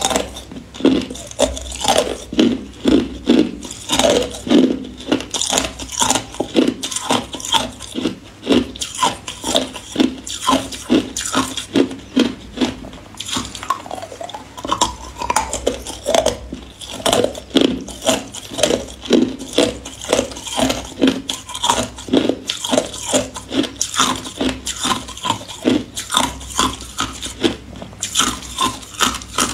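Close-miked crunching and chewing of hard ice balls bitten in the mouth: many sharp cracks and crunches in quick succession, with brief pauses between bites.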